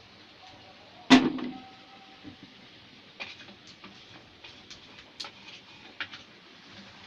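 A loud knock with a short ring about a second in, then a run of light clicks and taps: cookware and utensils being handled.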